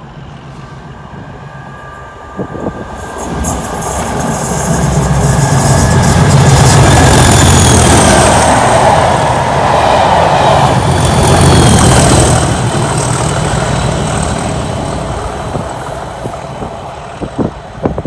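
Two Class 37 diesel-electric locomotives passing with their train, one at each end. Their engine sound builds from a few seconds in, peaks once near the middle and again about two-thirds through as each locomotive goes by, then fades away.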